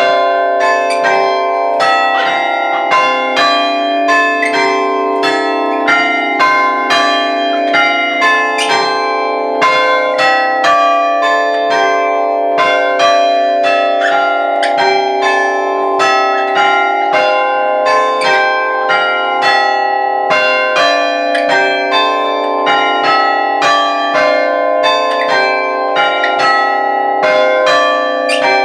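Six church bells chimed by hammers from an Ellacombe chiming apparatus; only six of its eight bells work. The bells are struck one after another in a steady run, about two to three strikes a second, and each note rings on over the next.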